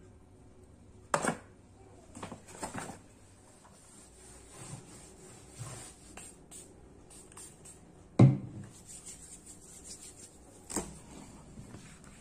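Handling noise of packing at a wooden work board: a few sharp knocks and taps of objects being picked up and set down, with light rubbing between them. The loudest is a dull thump about eight seconds in.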